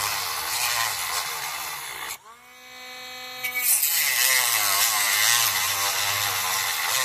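Dremel rotary tool with a metal-cutting wheel grinding through hard plastic, the motor labouring. About two seconds in the grinding drops away, leaving the tool's whine, which climbs back to a steady pitch. The grinding resumes just before four seconds in.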